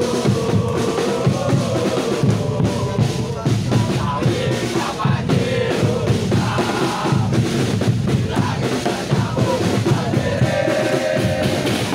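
A crowd of football ultras chanting in unison to a steady drum beat.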